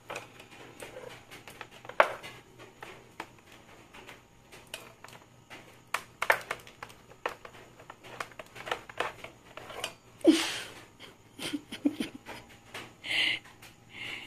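Scattered light taps, scuffs and clicks of kittens' paws and a dangled cord on a tiled floor, with a louder scuff about ten seconds in and a brief higher-pitched sound about thirteen seconds in.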